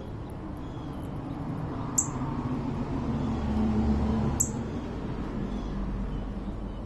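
Low rumble of a passing vehicle, swelling to its loudest about four seconds in and then fading, with two sharp clicks, about two and four and a half seconds in.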